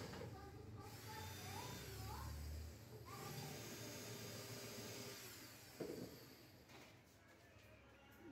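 Cordless drill/driver running, driving screws to fix a cabinet door's hinge. There is a short knock about two-thirds of the way through.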